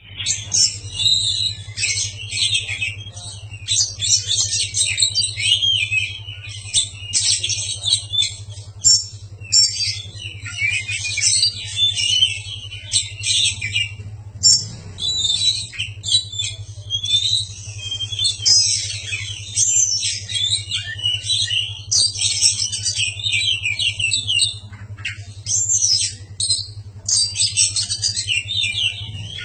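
Oriental magpie-robin (kacer) singing loudly and without pause: a rapid, varied stream of whistles, chirps and harsh squawky notes. A steady low hum runs beneath it.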